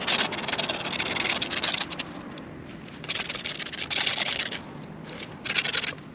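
Three spells of scraping and rubbing on metal, each made of rapid fine strokes; this fits the 0.5 mm copper sheet being trimmed and fitted as a cylinder head gasket.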